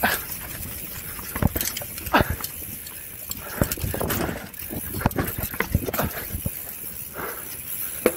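Mountain bike rattling and knocking as it is ridden down a rough dirt singletrack over roots and ruts, with irregular clatter from the bike over a steady hiss of tyres and rushing air.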